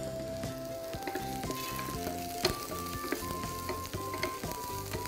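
Lemongrass sizzling in a little hot oil in a pan as it is stir-fried, with the spatula clicking against the pan now and then. Instrumental background music with a slow stepping melody plays over it.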